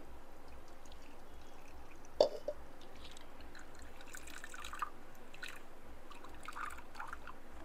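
Brahmi and jaggery mixture boiling up frothy in the pan, with small wet bubble pops and one sharp knock about two seconds in.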